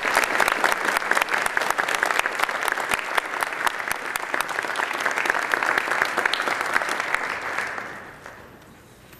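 Audience applauding, a dense run of claps that dies away about eight seconds in.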